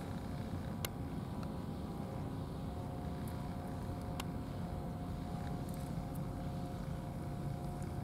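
A steady low engine rumble with a faint constant hum, unchanging throughout, with a few light clicks.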